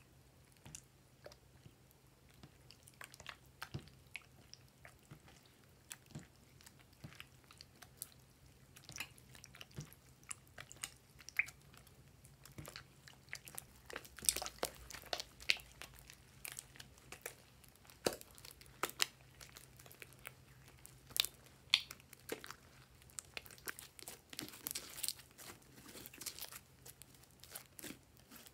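Thick glossy slime squeezed, kneaded and stretched by hand: sticky squelches with small popping clicks, sparse at first, then coming thick and fast from about halfway through.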